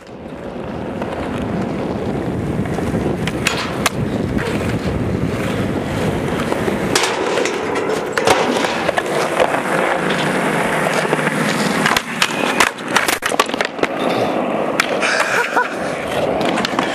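Skateboard wheels rolling over concrete, with many sharp clacks and knocks as the board and trucks strike the ramp and ground.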